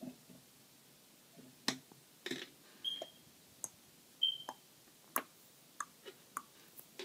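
Faint, irregular clicks and taps of makeup tools being handled as a brush and eyeshadow palette are put down and picked up, with two brief high squeaks in the middle.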